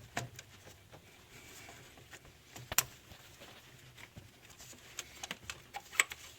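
Scattered small clicks and taps of a metal socket and solenoid valve being handled and fitted by hand on an engine, with one sharp click nearly three seconds in and another near the end.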